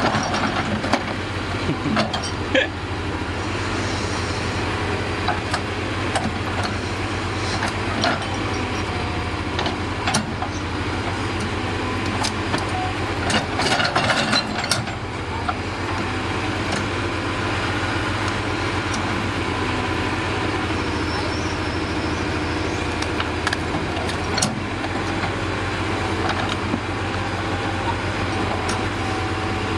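Bulldozer diesel engine running steadily at idle, with scattered sharp knocks and a burst of clattering about halfway through.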